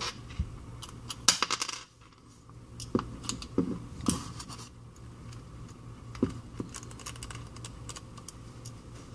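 Small metal tools and phone parts clicking and tapping on a hard work surface during the reassembly of an iPhone 5c: a quick rattle of clicks about a second in, then scattered single taps.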